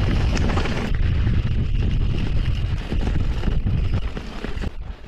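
Wind buffeting the camera microphone while a mountain bike rolls fast over rough dirt and gravel, its tyres and frame rattling. The noise eases a little near the end.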